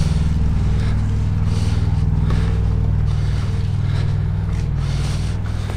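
Diesel engine idling with a steady low throb, slowly getting quieter.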